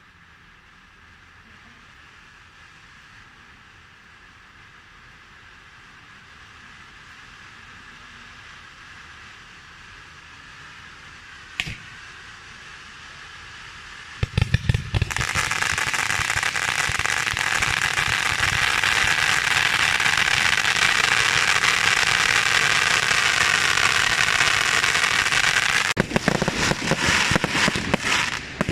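Fireworks going off. A faint hiss slowly swells for about fourteen seconds, broken by a single sharp pop, and then a loud, dense crackling hiss starts all at once and holds steady. Near the end it breaks up into many rapid separate cracks and pops.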